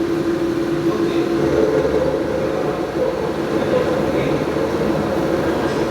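Milling machine running steadily, a constant hum over a low mechanical rumble.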